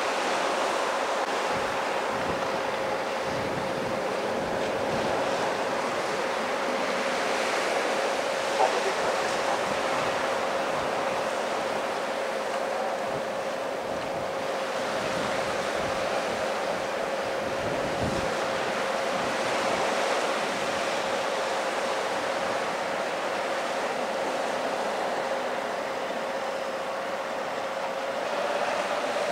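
Surf washing on the shore with wind on the microphone, under a steady mechanical whine from an engine running close by. A single short clank about nine seconds in.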